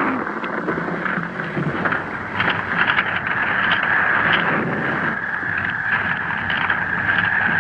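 Radio-drama sound effects of the Tyrannosaurus rex being brought down: a loud, continuous, rumbling roar, with a steady shrill tone growing stronger toward the end.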